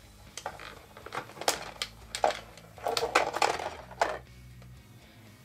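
Plastic parts and wiring of an RC tank being handled: the turret ring and cables rattling, clicking and rustling as the wires are worked free. Scattered short clicks, with a busier stretch a little past the middle.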